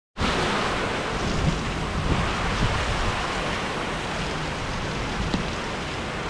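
Heavy rain from a tropical storm falling steadily, with gusty wind buffeting the microphone in a low rumble.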